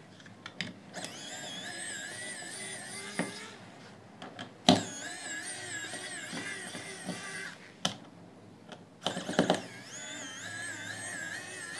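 Cordless electric precision screwdriver's small motor whining in three runs of a few seconds each, its pitch wavering as it backs screws out of a plastic headphone ear cup. Sharp clicks and taps of the bit and plastic come between the runs.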